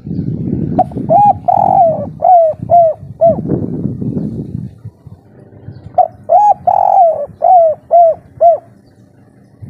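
Spotted dove cooing: two song phrases of about six or seven short, arched coos each, a few seconds apart, of the type bird keepers call a 'kuk 3' song. A low rumbling noise runs under the first phrase.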